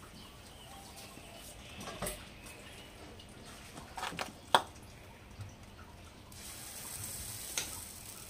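Utensils knocking and clicking against a metal pancake griddle, the sharpest click about halfway through, then from about three-quarters of the way a soft sizzling hiss as jianbing batter is ladled onto the hot griddle.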